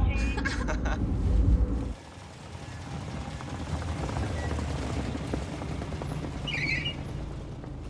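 Car running: a loud low engine and road rumble inside the taxi's cabin, which drops abruptly about two seconds in to a quieter, steady sound of the car driving along the street, with a short high chirp near the end.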